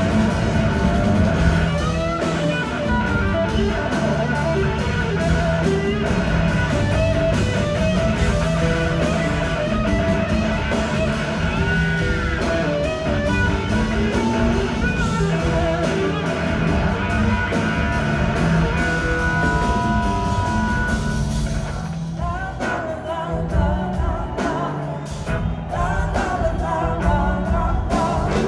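Live rock band playing, with singing, electric guitar and drum kit, recorded from the audience close to the stage. The full band thins out and drops a little in level about two-thirds of the way through.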